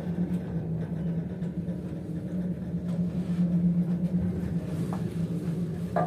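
Cable car gondola descending, heard from inside the cabin: a steady low mechanical hum.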